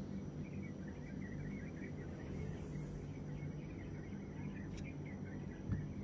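Steady low hum with faint high chirping, and one sharp click near the end as flush cutters snip through jewelry wire, followed by a small knock.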